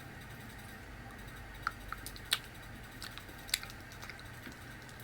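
A few sharp little clicks and rustles, three of them standing out, as a wrapped pistachio candy is handled and unwrapped.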